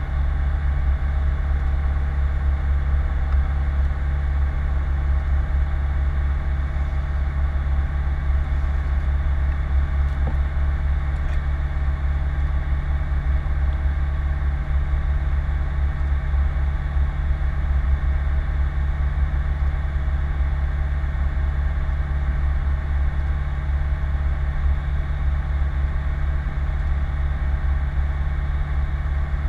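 Rotax 912 four-cylinder engine of a PS-28 Cruiser light aircraft running at a steady speed, heard from inside the cockpit as a constant low drone.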